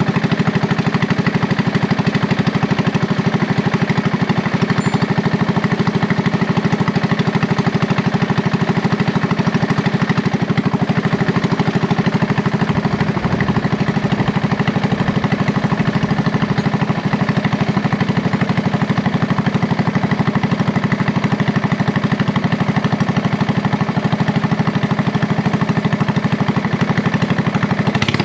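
Riding-mower engine running steadily at a constant speed while the mower is driven, with a brief low rumble about halfway through.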